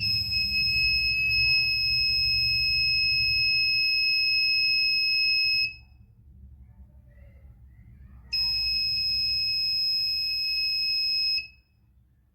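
Buzzer in a 555-timer alert circuit sounding one steady high-pitched tone for about five and a half seconds, stopping, then sounding again for about three seconds. The timer switches it on and off at intervals as a reminder that an appliance such as a geyser has been left on.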